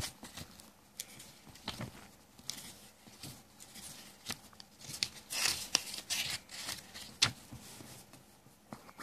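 Pages of a small paper booklet being turned by hand: sharp paper flicks and rustling, with a longer, louder rustle of several pages flipping past about five to six and a half seconds in.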